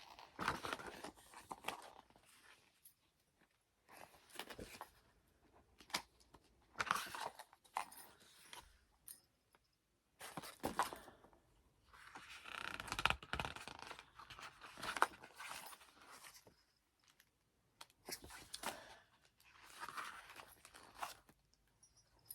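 Pages of a photobook being turned one after another: a string of brief, irregular paper rustles and scrapes with short pauses between them.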